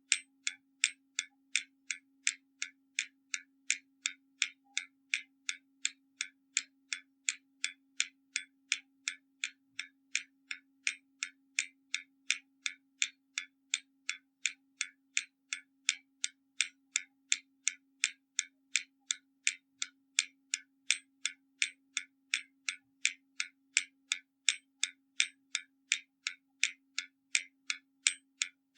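Hermle mechanical skeleton clock ticking at an even pace, about two sharp ticks a second, each one the escapement releasing.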